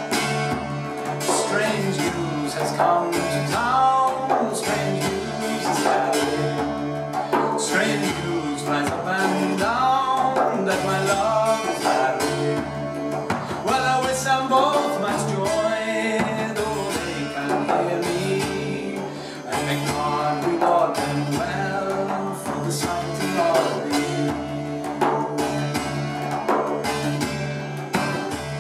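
Arabic frame drum played with the hands together with an open-tuned Irish bouzouki strummed over a steady drone, in an instrumental passage of a Celtic traditional song. The drum strokes are crisp and many, and an ornamented melody line bends and slides above the drone.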